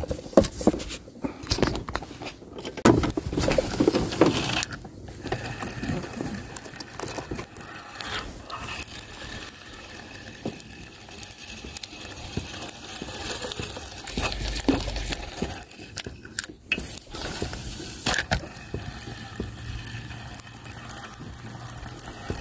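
Fishing-rod handling noise as a spinning reel is cranked to retrieve a lure, with irregular clicks and scrapes from the reel and the angler's hands.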